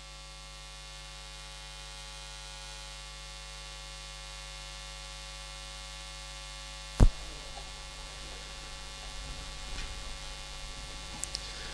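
Steady electrical mains hum with many evenly spaced overtones. About seven seconds in it cuts off with a single sharp click, leaving a quieter, rougher background noise.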